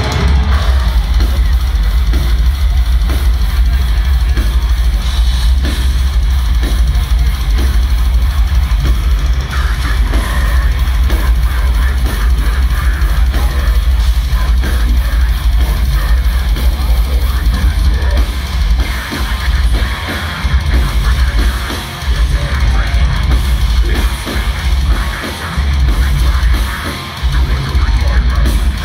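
Deathcore band playing live at full volume: distorted guitars and bass over fast, heavy drumming with a dense bass-drum pattern, heard from within the crowd.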